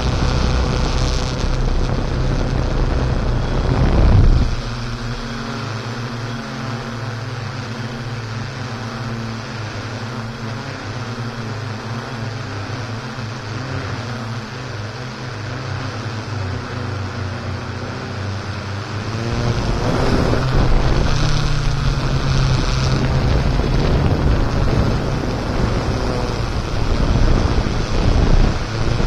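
Steady hum of a multirotor drone's propellers, picked up by its onboard camera, with wind buffeting the microphone. The wind noise is heaviest in the first four seconds and again through the last third.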